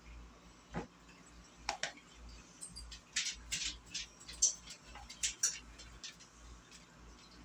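A series of light clicks and taps from kitchen handling, likely a utensil or container, with a couple about two seconds in and a denser cluster from about three to five and a half seconds in.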